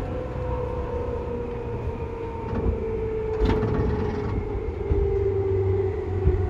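Seibu 2000 series electric train running, heard from aboard. A motor whine falls slowly in pitch as the train loses speed, over a low rumble of wheels on track. There is a single sharp knock about three and a half seconds in.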